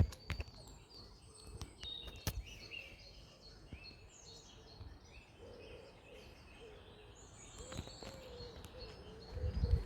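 Small birds chirping and singing over faint outdoor background noise, with a low rumble swelling near the end.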